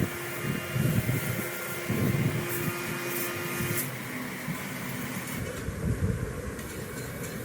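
Stepper motors of a 3D-printed CNC gantry whining steadily as the machine drives its seeding pike into the soil to make holes. The whine cuts off about four seconds in, leaving a low mechanical rumble.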